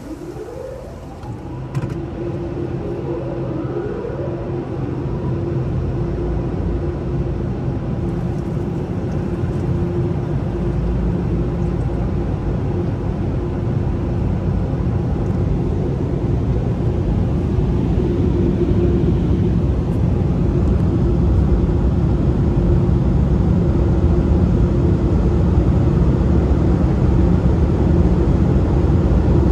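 Ryko Radius HT automatic car wash machinery starting up with a rising whine in the first two seconds, then running with a steady hum over a rushing noise that grows gradually louder.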